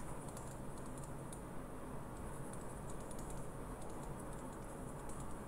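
Faint, scattered light clicks and taps of a stylus writing on a tablet surface, over a steady low background hum.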